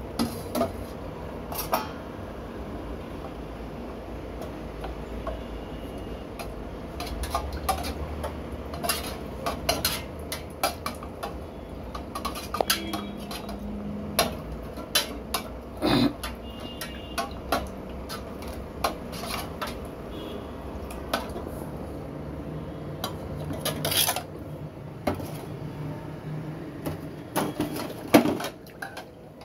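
Stainless steel pots, bowls and utensils clinking and clattering irregularly as they are handled, over a steady low hum.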